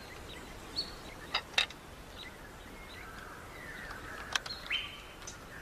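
Outdoor ambience with a steady low hiss, a few short bird calls and several sharp clicks or taps.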